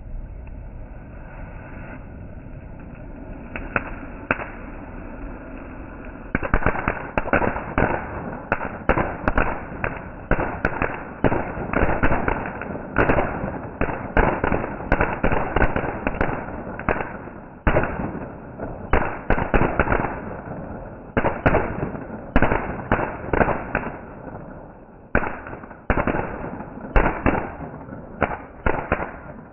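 Fireworks going off: a steady hiss for about the first six seconds, then a rapid, uneven string of bangs and crackles, several a second, with a couple of short lulls.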